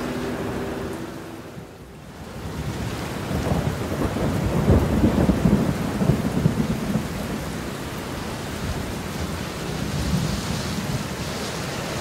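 Steady rain with a long rolling peal of thunder that swells about three seconds in, rumbles for several seconds, and eases back into the rain.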